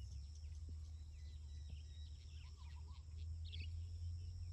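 Songbirds chirping and calling in scattered short notes, with a warbling call about two and a half seconds in, over a steady high-pitched insect drone. A steady low rumble runs underneath.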